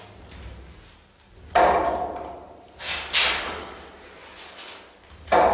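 Ninebot KickScooter ES-series electric scooter knocking sharply in the wheel each time the throttle trigger is pressed: a clunk with a short metallic ring, repeated about three to four times a couple of seconds apart. It is a knock on acceleration whose cause has not been found.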